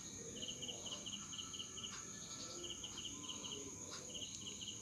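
Crickets chirping: short trilled chirps of five or six pulses, repeating about once a second, over a steady high-pitched whine.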